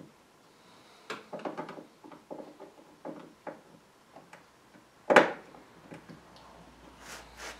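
Clicks, rattles and short scrapes of a small brass hinge being worked by hand on a wooden cabinet door, with one sharp knock about five seconds in.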